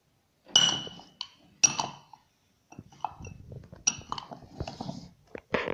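A spoon clinking against a dish as spoonfuls of dry ingredients are measured into a bowl of flour: three sharp ringing clinks, about a second in, near two seconds and near four seconds, with softer knocks and light scraping between.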